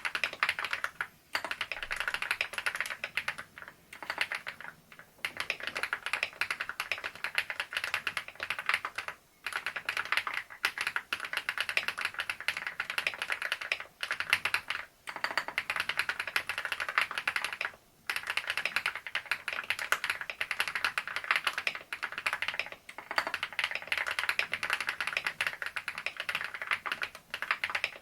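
Fast, continuous typing on a Leobog Hi98 mechanical keyboard with Seiya switches and XDA-profile keycaps: a dense run of low-pitched keystrokes, broken by brief pauses every few seconds.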